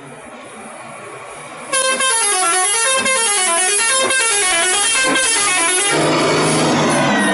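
Bus 'telolet' musical air horn playing a quick tune: several horn tones stepping up and down in a repeating pattern. It starts abruptly under two seconds in and plays loudly for about four seconds. Then it gives way to a loud rushing noise.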